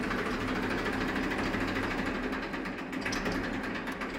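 Massey Ferguson 241 DI tractor's three-cylinder diesel engine idling steadily.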